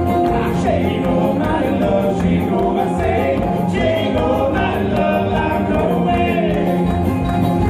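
Live bluegrass band playing, with voices singing together over banjo, fiddle, acoustic guitar, mandolin and drums.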